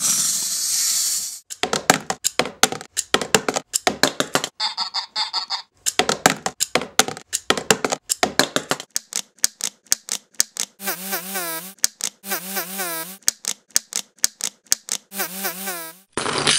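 Toy mechanisms clicking and rattling in fast runs, chopped into short looped pieces to make a beat. In the second half a short warbling electronic toy voice plays three times in a row.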